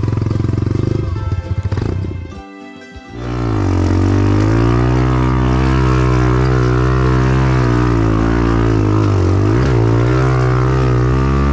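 Enduro dirt bike engine running, then a short drop-out about two and a half seconds in. After that the engine runs on at low revs, its pitch rising and falling gently with the throttle.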